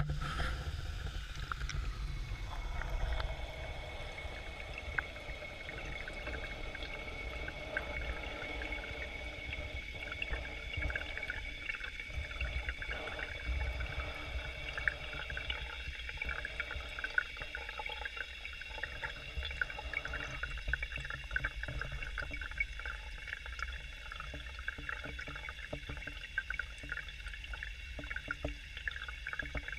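Water bubbling and trickling in an aquaculture fish-rearing tank, heard from under the surface: a steady low rumble with a faint steady high whine and many small crackling ticks.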